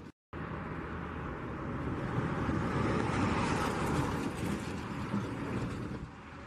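Jet engines of an Airbus A350-941, Rolls-Royce Trent XWBs, as the airliner rolls past on the ground: a steady rumble and hiss that swells to its loudest three to four seconds in, then eases. The sound drops out for a moment right at the start.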